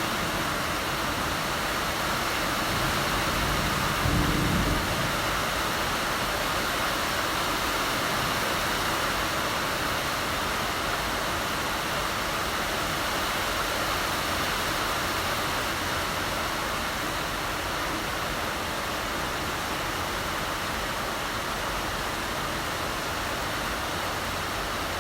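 Heavy rain falling steadily, an even hiss with no break, with a brief low rumble about four seconds in.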